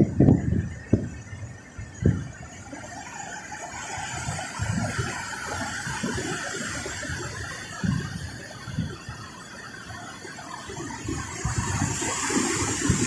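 Rough surf breaking and washing up a cobble beach, a steady hiss that swells near the end as a wave runs up the stones, with gusty low rumbles throughout.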